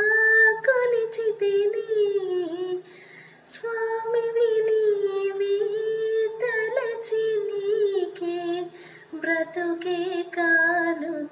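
A woman singing a Telugu film song solo in long held, gliding notes, with two short breaks, about three and eight and a half seconds in.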